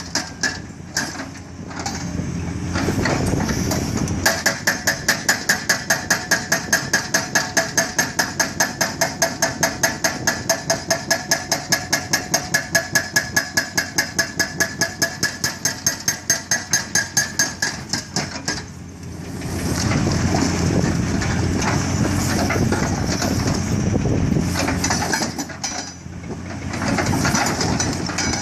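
An excavator-mounted hydraulic breaker hammers rock in a steady run of blows, about four to five a second, from a few seconds in until about two-thirds through. Then the blows stop, and the excavator's engine and hydraulics run on loudly while the breaker is repositioned.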